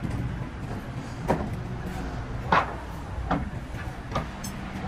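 Workshop noise: a steady low mechanical hum with four sharp, irregularly spaced knocks, the loudest about halfway through.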